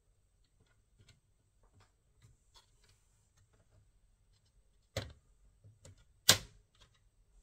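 Scattered light clicks and taps of hands working on a laptop's parts, with two sharp, louder clicks about five and six seconds in.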